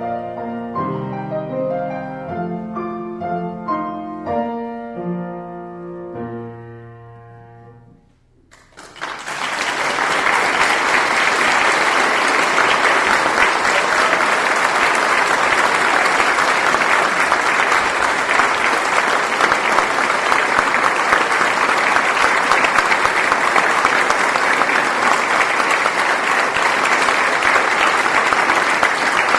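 Piano music dies away about eight seconds in. Then an audience applauds, loud and steady.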